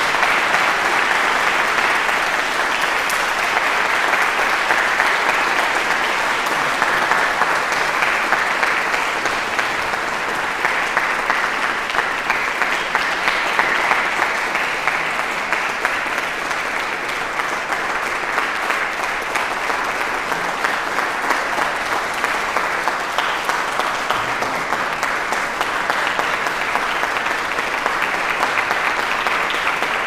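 Concert audience applauding steadily at the end of a performance, a dense, even clapping that holds at a constant level throughout.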